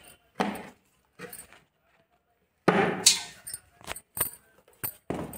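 Stainless-steel colander being handled, with a string of short scrapes and rustles and a few sharp metallic clinks as loose sponge-gourd flowers go into it. The loudest clatter comes about three seconds in.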